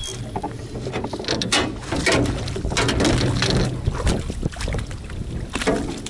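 Irregular knocks and clatter of gear being handled in a small fishing boat, over wind noise on the microphone.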